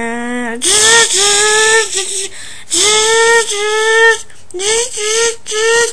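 A high voice imitating race-car engines with the mouth: a quick string of 'vroom' notes, each swooping up and then held briefly. The notes have a raspy edge.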